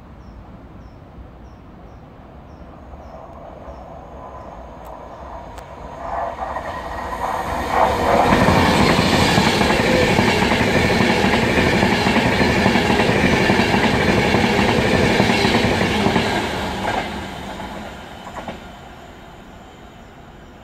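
Class 390 Pendolino electric express train passing through a station at speed: a rushing rail noise builds over several seconds, stays loud for about eight seconds with the wheels clattering on the rails as the carriages go by, then fades away.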